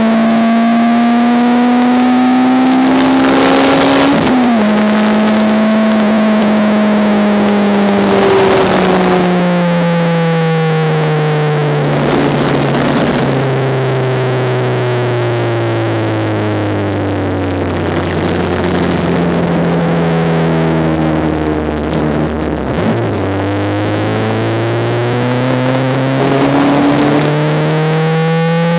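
Honda Civic race car engine heard from inside the car at speed. The revs climb and drop sharply at a gear change about four seconds in, then sink steadily for well over ten seconds as the car slows. From a low point near the end the engine pulls hard, revs rising again.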